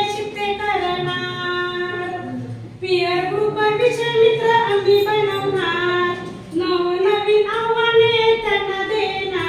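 A woman singing unaccompanied, holding long steady notes in three phrases, with short breaths about three seconds in and again past six seconds.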